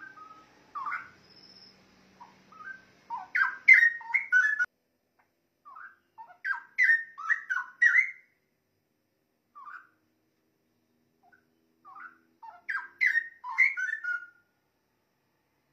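Straw-headed bulbul singing: three loud bursts of rich, bubbling whistled phrases, each a quick run of rising and falling notes, with odd single notes in the pauses between.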